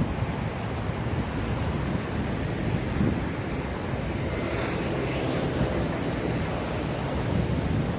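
Sea waves washing in, a steady rush with one wave breaking more brightly about halfway through, with wind rumbling on the microphone.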